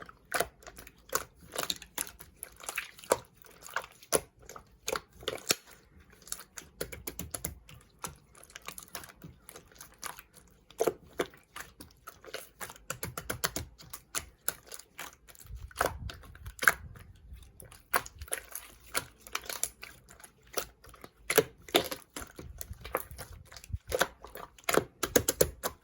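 Slime being worked by hand, squished and pressed, giving a fast irregular stream of small clicks and pops.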